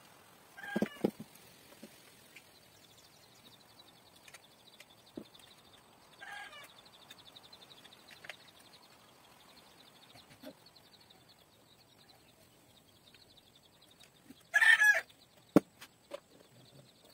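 A chicken calling in three short outbursts, the loudest about three-quarters of the way through. Scattered sharp clicks and knocks come from the bike's saddle and seat post being fitted, one loud knock just after the last call.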